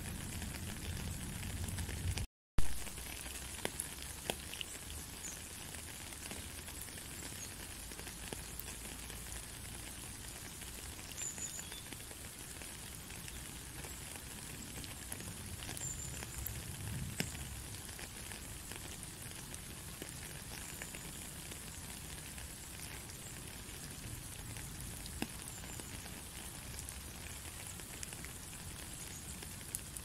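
Steady rain: an even hiss of falling drops with scattered small ticks. About two seconds in, the sound drops out for a moment and comes back with a sharp click.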